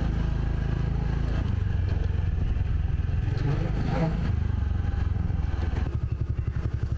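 Motorcycle engine running as the bike rides along, then dropping to idle about six seconds in, with an even pulsing beat.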